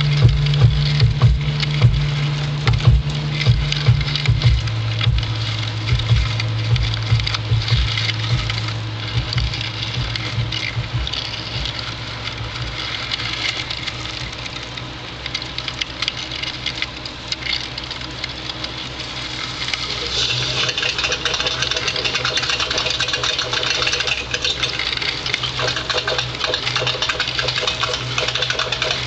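Electronic music with a sustained low bass drone. Clicking, percussive hits run through the first several seconds and then thin out, and a brighter, denser layer comes in about two-thirds of the way through.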